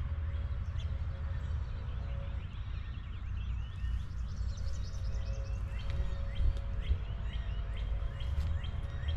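Small birds chirping and calling in quick, short notes, busier from about halfway in, over a steady low rumble.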